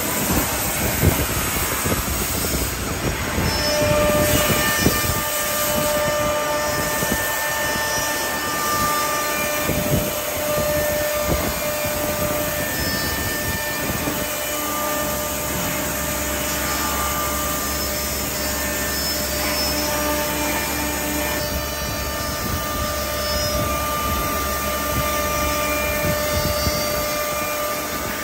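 Four-head CNC wood router running, with its spindles whining at several steady pitches that start and stop as the heads change, over a steady machine and cutting noise.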